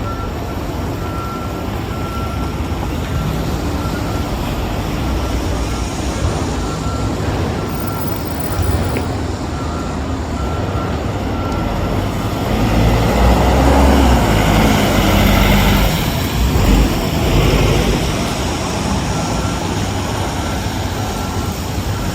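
Street traffic with a vehicle passing close by, rising to its loudest about two-thirds of the way through and then fading. A faint, evenly repeating beep sounds throughout.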